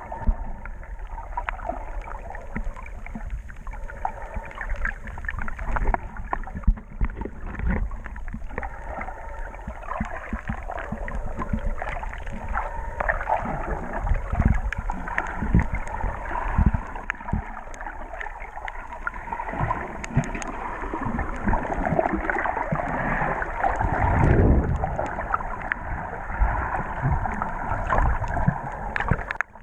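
Muffled underwater sound picked up by a submerged camera: water sloshing and gurgling, with irregular low thumps throughout.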